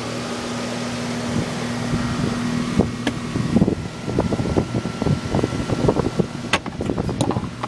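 Bryant central air conditioner outdoor unit running steadily, its condenser fan and single-stage Copeland scroll compressor giving an even hum. From about halfway, a run of irregular clicks and knocks sounds over the hum.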